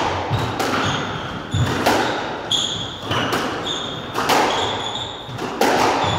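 Squash rally: the hard rubber ball cracking off the rackets and the court walls roughly once a second, each hit echoing around the court. Short high squeaks of shoes on the wooden floor come between the hits.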